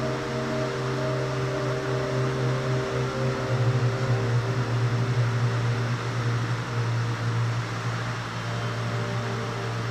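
Ambient background music of held, droning synth-pad chords, changing chord about three and a half seconds in.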